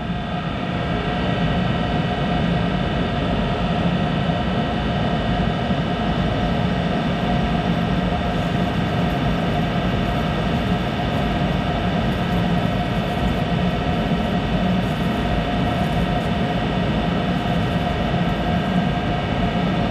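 Monarch 10EE lathe running steadily with its chuck spinning, a constant machine hum and whine with several steady tones. It is a noisy machine, which the owner puts down to a bad bearing somewhere in it.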